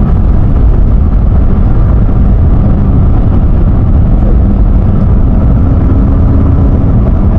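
Semi truck cab at highway speed on a wet road: a loud, steady low rumble of engine and road noise.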